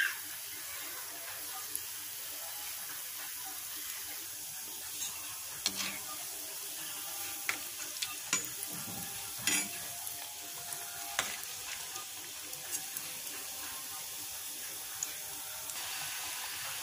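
Wheat-flour badusha dough rounds deep-frying in hot oil in a kadai: a steady sizzle. A few sharp clicks come through the middle as a slotted spoon turns them in the oil.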